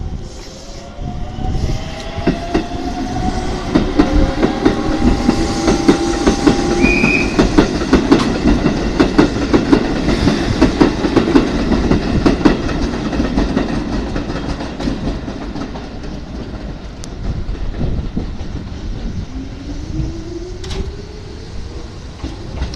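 Keisei 3400-series electric train pulling away: its traction motors whine upward in pitch, then its wheels clatter rapidly over the station points, with a brief high tone about seven seconds in. Near the end a second electric train's motors start up with a rising whine as it begins to move off.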